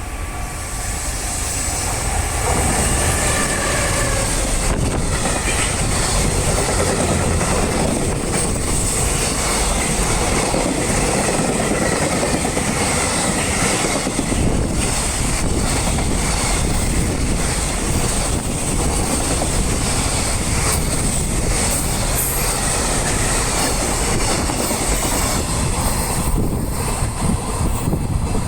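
A long freight train passing close by at the level crossing: its wheels running over the rails in a loud, steady rumble that builds over the first two seconds and holds for nearly half a minute.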